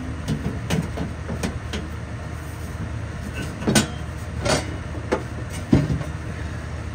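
Sheet-metal floor plate knocking and scraping against a car's cut-open steel floor pan as it is handled and test-fitted: a series of sharp, irregularly spaced clanks over a steady low hum.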